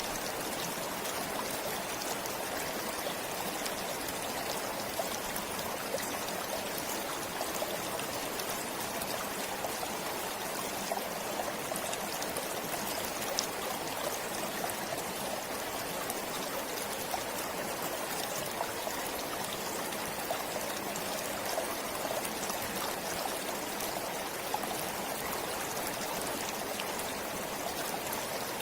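A small forest stream flowing steadily, with a continuous babbling rush and fine splashing trickles over it.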